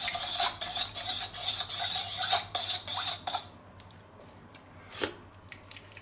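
Metal spoon stirring a thin tomato sauce in a stainless-steel bowl, scraping and clinking against the bowl in quick repeated strokes until it stops about three and a half seconds in; one faint tap follows about five seconds in.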